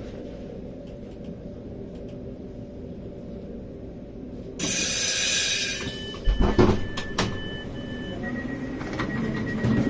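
Haramain high-speed train standing at a station with its doors working. A steady low rumble is broken about halfway through by a sudden loud burst of air lasting about a second, followed by a few sharp clunks. Steady electronic door warning tones sound through the second half.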